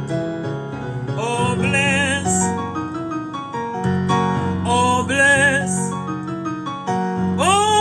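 Slow gospel hymn with piano accompaniment; a singer holds long notes with vibrato three times between piano chords.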